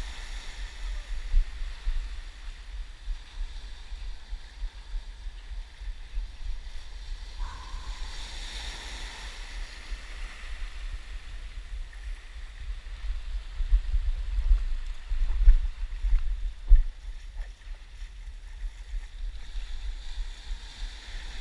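Wind rumbling on the microphone over small surf waves washing in shallow water, with heavier gusts of rumble about two thirds of the way through.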